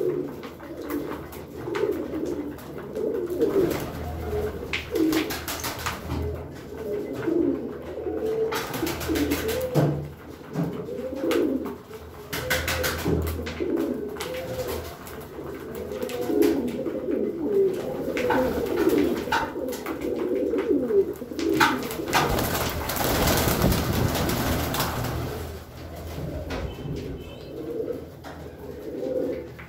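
Domestic pigeons cooing, many calls overlapping without a break, with scattered sharp clicks and a few seconds of louder rustling noise about two-thirds of the way in.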